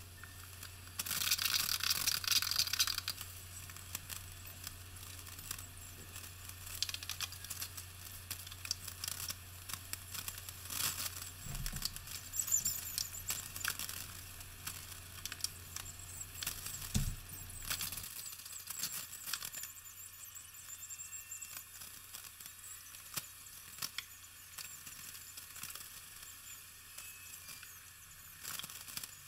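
Sped-up time-lapse sounds of grouting subway tile: a grout float and a damp sponge scraping and squeaking over the tile, heard as quick high chirps, scrapes and ticks. The loudest stretch comes about a second in, and a low hum stops about two-thirds of the way through.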